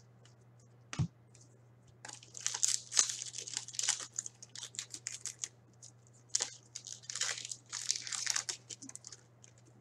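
Foil wrapper of a trading-card pack being torn open and crinkled by hand: a run of quick, crackly rips and rustles in clusters from about two seconds in to near the end. A single knock about a second in.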